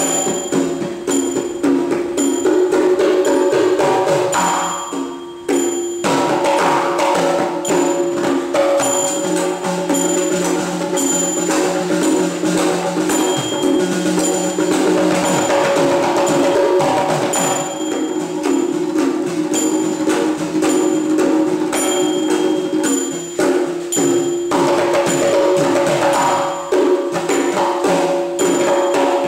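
Kutiyattam percussion ensemble: mizhavu copper pot drums played with bare hands, with an idakka hourglass drum and small bronze talam cymbals struck in a steady ticking beat. The drumming eases briefly about five seconds in, then carries on.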